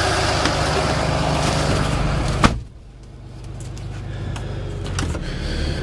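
Cummins turbo diesel idling steadily, then a truck door shuts with a single sharp bang about two and a half seconds in, and the engine becomes much quieter and muffled, with a few light clicks after.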